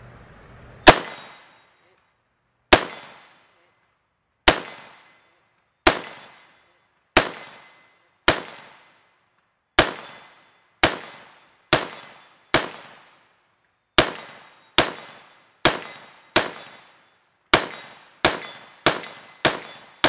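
Lead Star Grunt AR-15-style rifle with a muzzle compensator firing 5.56 rounds in slow semi-automatic, about eighteen sharp shots, each with a short echo tail. The shots come roughly a second or more apart at first and faster near the end.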